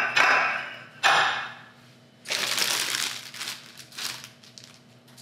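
A couple of short clatters in the first second or so as metal donut pans are set on the counter, then a plastic zip-top bag full of batter crinkling as it is handled and squeezed.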